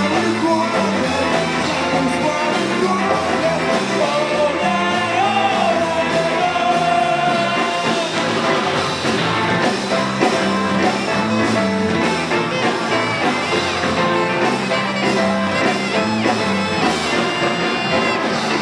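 Live punk band playing at full volume, electric guitars and rhythm section, with a male vocalist singing and shouting into a handheld microphone.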